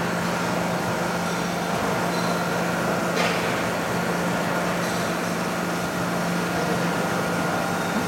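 Large commercial spiral dough mixer running with a steady motor hum, with a short sharp noise about three seconds in.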